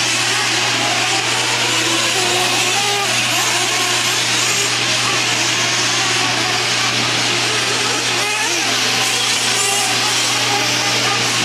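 Several 1/8-scale nitro truggies' small two-stroke glow-fuel engines buzzing at high pitch together, their notes rising and falling as the trucks throttle up and brake around the dirt track, over a steady low hum.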